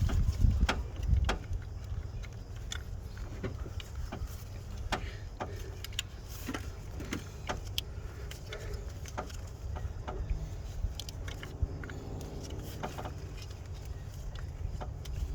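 Scattered light clicks, taps and metal clinks of hand tools working at the engine to free a stuck camshaft position sensor. There is a steady low rumble underneath.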